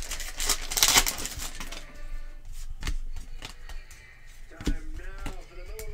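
Crinkling of a foil trading-card pack wrapper being torn open for the first second or two, then scattered light clicks and flicks of basketball cards being thumbed through by hand.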